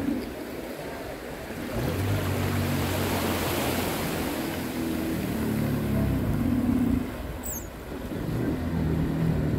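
Yamaha jet ski's engine running as it moves slowly through shallow water, easing off twice, shortly after the start and about seven seconds in, then picking up again, over the wash of small waves.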